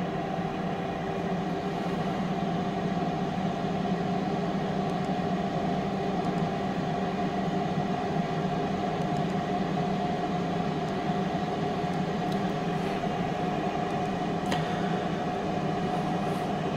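Power XL air fryer running while it cooks: its fan motor gives a steady hum with a constant whine over it, and a light click sounds near the end.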